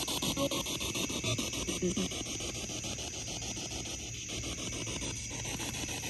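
Spirit box sweeping through radio stations: a steady static hiss broken by rapid, evenly spaced clicks as it jumps from station to station.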